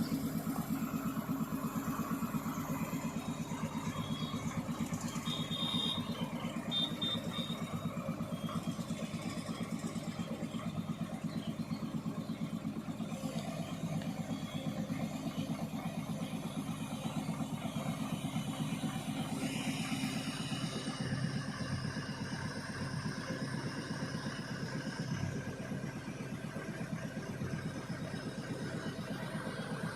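Mobile crane's engine running steadily while the crane is operated, with a few short high-pitched tones between about four and nine seconds in.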